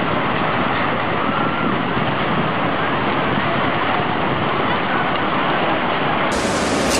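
Tsunami floodwater surging through a town among houses and debris, a loud steady rushing noise. Near the end it changes to a brighter rush of moving water.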